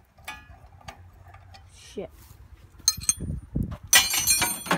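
Metal hand tools and sockets clinking and clattering against each other, with a dense, ringing burst of clanking in the last second and a half.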